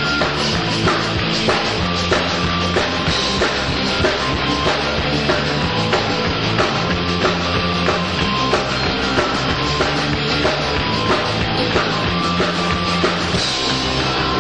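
Heavy rock band playing live, a drum kit driving a steady beat under the other instruments.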